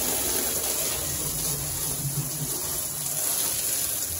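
Steady spray of water from a hose washing down the inside of a truck cab, the water hitting the metal panels and glass.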